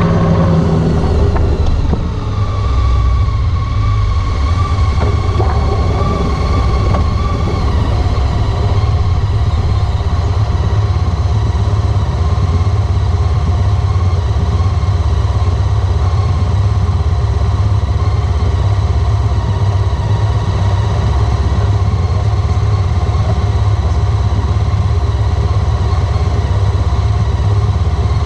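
Honda ST1300 Pan European motorcycle's V4 engine running steadily, its sound mostly low-pitched.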